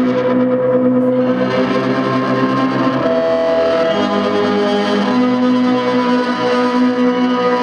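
Bowed violin fed through distortion and echo effects pedals, making layered, sustained droning tones. Some of the held pitches shift about three and five seconds in.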